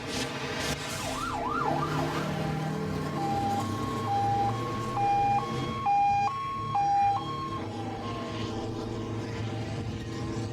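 Emergency vehicle sirens: a two-tone hi-lo siren switching between two pitches about twice a second through the middle, giving way near the end to a slow rising and falling wail.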